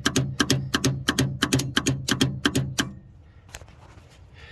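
Aquamaster fountain control panel's light contactor chattering: it pulls in and drops out about three times a second, each cycle a pair of clicks with a hum between them, and stops about three seconds in. The contactor is cycling on its own, damage the owner puts down to a lightning strike or power surge.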